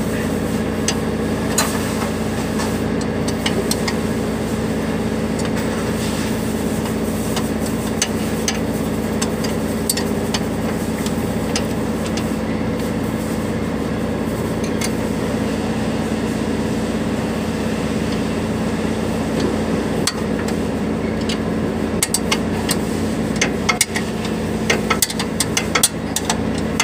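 Scattered metal clinks and ticks of hand tools on a truck's air dryer fittings, coming thicker near the end, over a steady mechanical hum.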